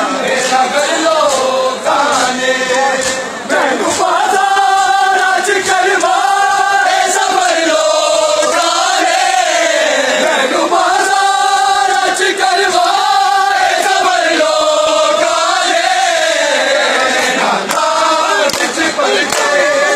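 Many men chanting a noha (Shia lament) together in long, drawn-out phrases whose pitch rises and falls, with a steady patter of hands slapping bare chests in matam.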